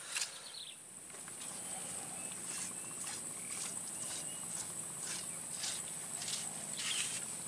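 Swamp insects droning steadily at a high pitch. From about two seconds in there are short sharper chirps about twice a second and a few faint short whistles. There is a brief knock right at the start.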